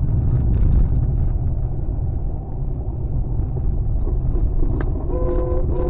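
Steady low rumble of a car driving, engine and tyre noise as picked up inside the cabin by a dash cam.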